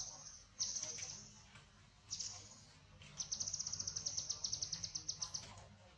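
High-pitched animal chirps: a couple of sharp falling chirps in the first second and another about two seconds in, then a fast run of about ten chirps a second lasting some two seconds.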